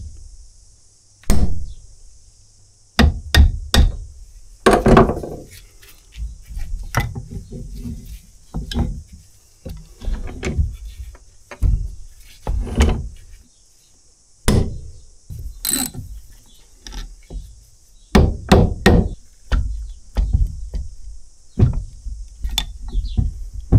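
Irregular hammer blows on a steel punch and drift, knocking apart the lift-arm shaft of a Kubota B7100 hydraulic lift unit on a wooden workbench. The sharp knocks come one by one and in quick runs of two or three, with short pauses between.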